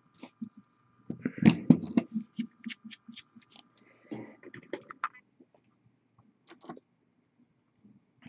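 Small plastic paint bottle and palette being handled on a work table: a run of clicks and light knocks, densest about a second in, then sparser taps. A faint steady hum stops about four seconds in.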